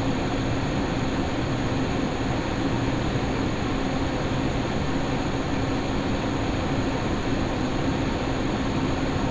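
XPG Vento (Nidec Gentle Typhoon) 120 mm case fans in a PC case, running steadily. The airflow makes a whoosh with a low steady hum under it.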